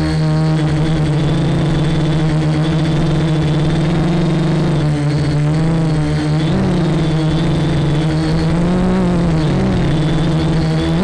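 Quadcopter's electric motors and propellers buzzing in flight, a steady pitched drone that starts to waver up and down about halfway through as the throttle changes.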